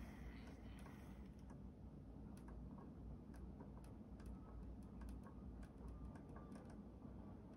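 Faint, irregular ticking clicks, a few a second, over a low steady hum.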